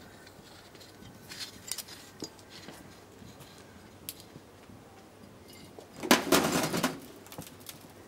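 Someone handling the makeshift rig on the car bonnet: scattered small clicks and knocks, then a louder rattling clatter lasting under a second about six seconds in.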